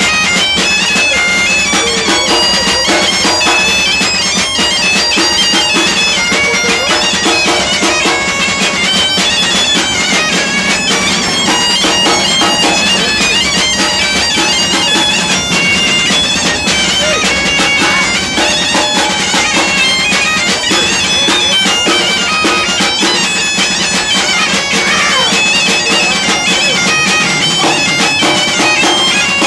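Asturian bagpipe (gaita asturiana) playing a continuous melody over its steady drone.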